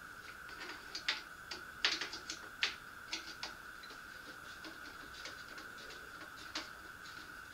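Light, irregular metallic clicks and ticks from hands working the spokes of a bicycle wheel, most of them in a burst in the first half and one more near the end. A steady high-pitched hum runs underneath.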